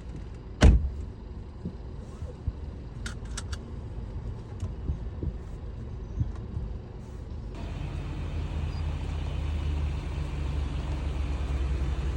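A single heavy thump, then a vehicle engine running with a low rumble, a few light clicks a few seconds in. From about eight seconds in the engine gets louder and steadier.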